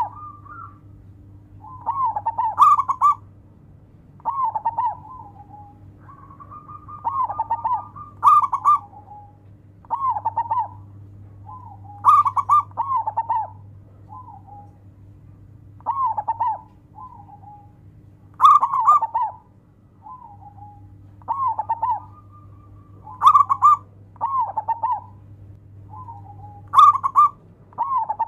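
Zebra dove (perkutut) cooing in short repeated phrases, about one every two seconds, some opening with a held note. A faint steady hum runs underneath.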